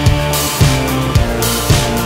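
Rock-style background music with guitar and drums, keeping a steady beat of about two strokes a second.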